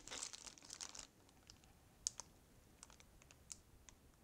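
Near silence with a few faint, scattered ticks and crinkles as a plastic zip bag holding cube magnets is handled and turned over.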